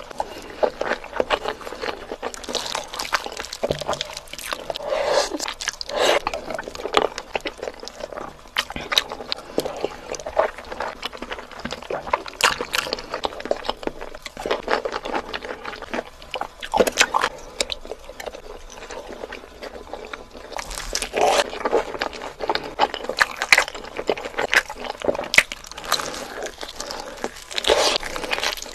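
Instant noodles being slurped and chewed close to the microphone: wet sucking slurps and mouth clicks in irregular bursts.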